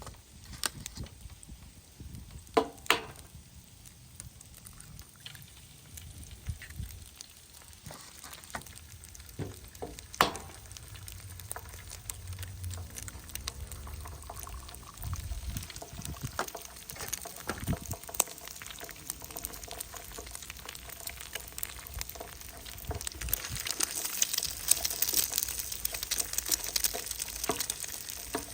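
Breakfast being cooked: scattered knocks and clinks of utensils and cookware, then food sizzling in a frying pan, the crackle growing louder over the last few seconds.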